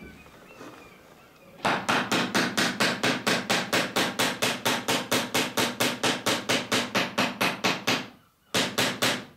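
Small hammer riveting square-shanked copper boat nails over roves on a clinker dinghy's planking. Quick, even ringing strikes, about five a second, start about a second and a half in, pause briefly near the end, then resume.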